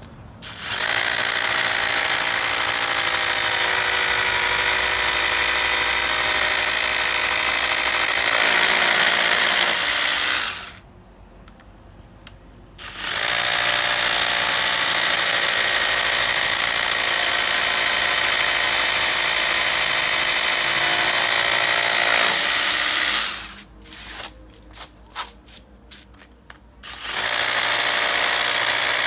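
Makita 12V brushless rotary hammer drilling into stony concrete, its hammer action running in two long runs of about ten seconds each. A few short trigger pulses follow, then it starts again near the end.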